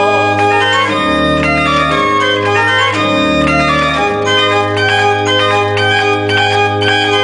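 Historic two-manual pipe organ being played: full sustained chords over held bass notes, with quick moving notes in the upper voice.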